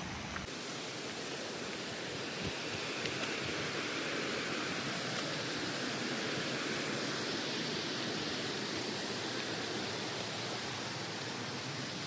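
Waterfall in full flow after the monsoon: a steady, even rush of falling water.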